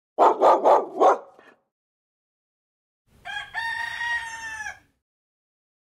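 A dog barks four times in quick succession, then after a pause a rooster crows once, a single held call. The barks are the loudest part.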